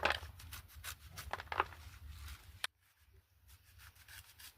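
Green leafy vegetables being cut by hand, a quick series of short crisp snaps and clicks that stops abruptly about two-thirds of the way through, leaving only faint sounds.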